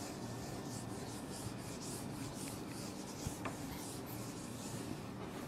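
A whiteboard being wiped clean by hand in quick back-and-forth strokes, a dry rubbing sound with each stroke, with a small tap about three seconds in.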